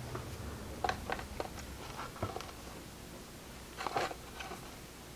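Scattered faint clicks and small taps of a wire lead and hand tools being handled while the lead is fastened through a radio power switch's eyelet, with a louder cluster of clicks about four seconds in.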